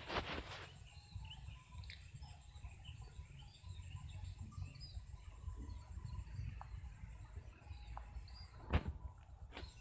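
Evening field ambience: scattered small bird chirps over a steady high-pitched insect drone and a low rumble. There is a knock at the start and a sharper knock about nine seconds in.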